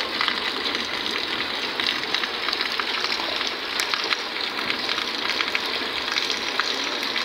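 Heavy rain pouring onto wet, puddled ground: a steady hiss dotted with countless small drop splashes.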